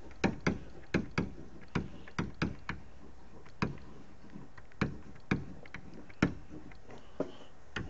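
Pen stylus tapping and clicking on a writing tablet during handwriting: sharp, irregular clicks, roughly two a second, over a faint steady hiss.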